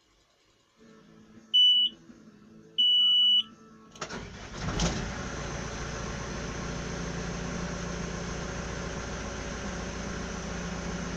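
Backhoe loader key-on and engine start: a faint low hum, a short warning beep and then a longer one, after which the engine cranks and catches about four seconds in and settles into a steady idle.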